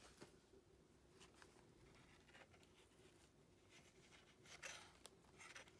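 Faint rustling and brushing of old paper and card as a pop-up book is handled and opened, in a few short scrapes, the loudest nearly five seconds in. A faint steady room hum lies underneath.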